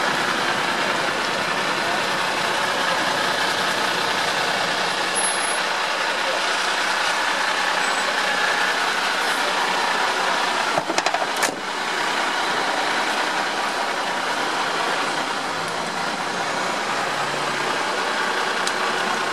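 Steady running of a vehicle engine with people's voices in the background, and a short cluster of knocks about eleven seconds in.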